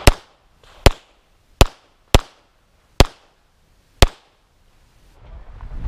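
Six pistol shots from a semi-automatic handgun, fired at uneven intervals over about four seconds. A rustling noise rises near the end.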